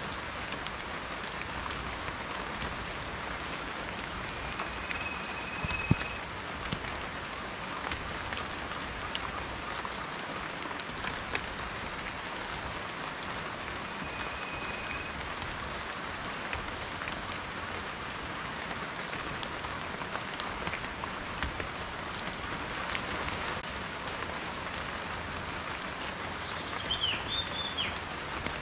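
Steady rain falling, with individual raindrops striking close by in scattered sharp ticks. A few faint high whistled notes sound through it, one short wavering one near the end.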